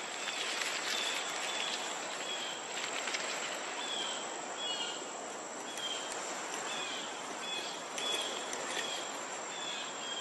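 Insects chirping in a nature ambience: short high chirps repeating about once a second over a continuous high-pitched trill and a steady hiss.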